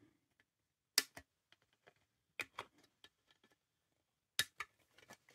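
Sprue cutters snipping a plastic model-kit sail off its sprue: sharp clicks in three quick pairs, about a second in, midway, and near the end.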